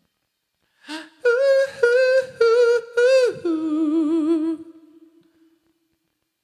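A man's unaccompanied wordless vocal line. He sings four short notes on about the same pitch, then ends on a lower note held with vibrato that fades away.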